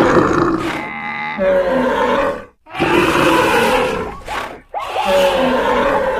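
A dense mix of overlapping animal calls from a running herd of cartoon animals, breaking off briefly twice.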